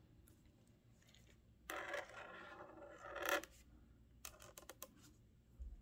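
Felt-tip pen scratching on paper as a circle is drawn: one longer stroke of about a second and a half, then a few short ticks of the tip on the page.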